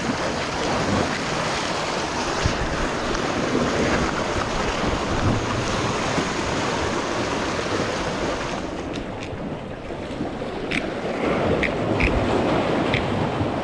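Small waves washing and breaking against jetty rocks, with wind buffeting the microphone. The wind hiss eases after about nine seconds, and a few short high-pitched ticks come near the end.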